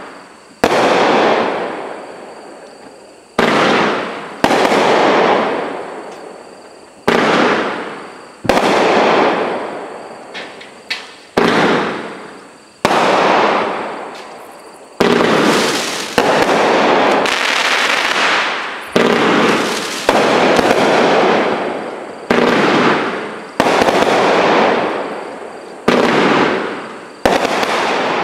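Insane Asylum consumer fireworks cake firing a long volley of aerial shots: about twenty sudden loud bangs, roughly one a second and coming faster in the second half, each one trailing off over a second or two.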